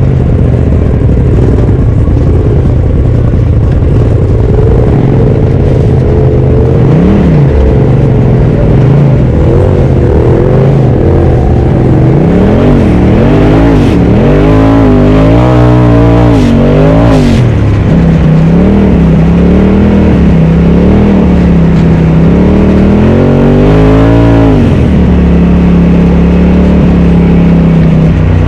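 Polaris RZR Turbo side-by-side engine running hard over trail, its pitch rising and falling again and again as the throttle is worked, then holding steady near the end.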